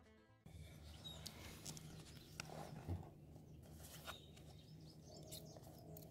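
Bluegrass banjo music cuts off about half a second in. It gives way to faint lakeside ambience: a low steady hum, a few scattered light clicks and knocks, and a couple of brief high bird chirps.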